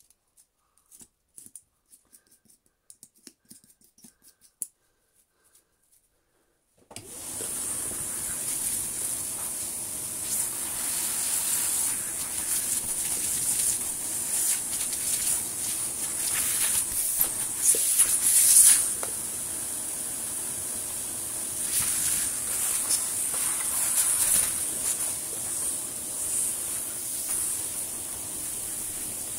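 Almost silent with a few faint clicks for the first seven seconds, then a vacuum cleaner switches on suddenly and runs steadily: rushing air with a high whine. It swells louder now and then as the hose nozzle sucks hair and fluff off a vacuum cleaner's brush roll.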